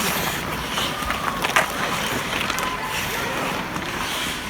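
Inline hockey play: a steady rumble of skate wheels rolling on the rink floor, with sharp clacks of sticks and puck, the loudest about a second and a half in.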